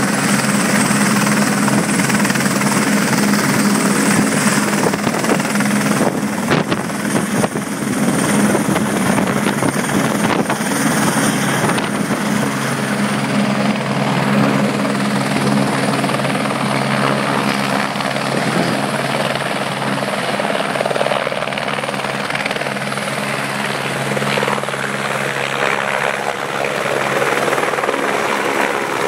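Eurocopter AS550 Fennec helicopter's turbine engine and main rotor running steadily at takeoff power as it lifts off and climbs away.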